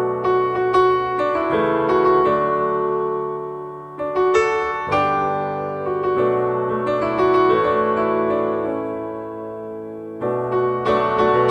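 Piano music: chords struck and left to ring and fade, with new phrases coming in about four seconds in and again near the end.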